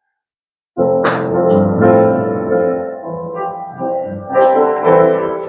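Silence, then piano music starts abruptly under a second in and plays on with sustained, overlapping notes.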